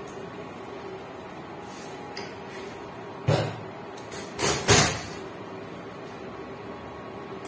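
Knocks and clatter of kitchenware being handled at the stove: one a little over three seconds in, then two close together about a second later, over a steady hum.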